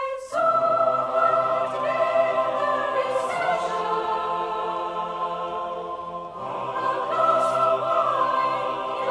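Choral music: a choir holding long, sustained chords, with a new chord entering about six seconds in.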